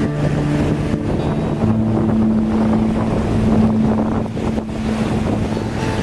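Surf breaking and washing over rocks and pebbles, a steady rush of water. A few low guitar notes ring and are held over it.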